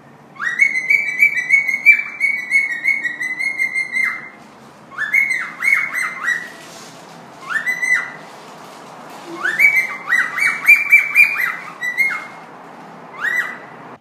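Pet parrot whistling in five bursts of quick repeated notes, each note sliding up to the same high pitch. The first burst is the longest and the last is a single short note near the end.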